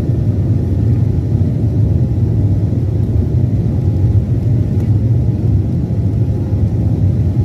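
Cabin noise inside a Boeing 737-800 under power, its CFM56 jet engines and the airflow heard as a steady, low, even noise with no change in pitch or level.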